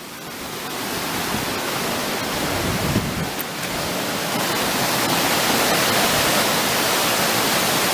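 Fast-flowing waterfall water rushing: a dense, steady noise that grows louder over the first few seconds and then holds.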